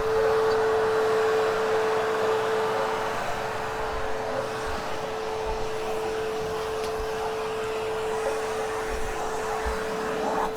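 Hoover HushTone canister vacuum running steadily, its motor giving a constant pitched whine over the rush of suction, with a few low bumps in the second half.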